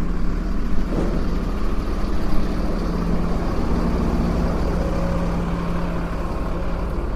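Tow truck engine running steadily with a low rumble and a steady hum, with a brief knock about a second in.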